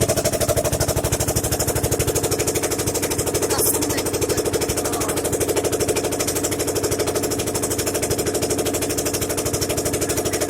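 Motor boat engine running steadily, a rapid, even chugging of firing pulses.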